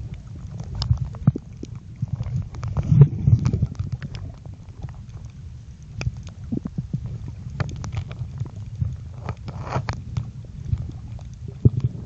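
Muffled underwater sound picked up by a mobile phone held under the sea: a low rumbling of moving water with many scattered clicks and crackles.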